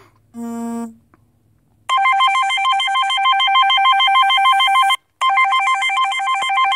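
Telephone ringtone signalling an incoming call: a rapid warbling trill of two alternating tones, ringing for about three seconds, pausing briefly, then ringing again. Just before it starts, a single short electronic beep.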